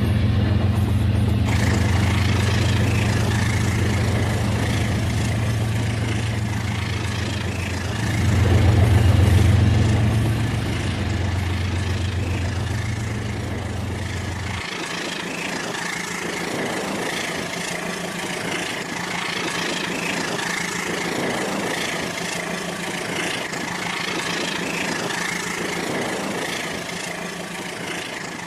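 Rail King toy train running on its plastic track, a steady motor hum and rumble that swells briefly and then drops to a softer running sound about halfway through.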